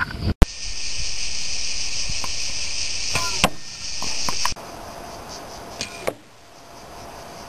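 An arrow hitting an archery target with one sharp, loud thud about half a second in. A steady high-pitched insect chorus follows and cuts off abruptly after about four seconds, with another short knock near the middle.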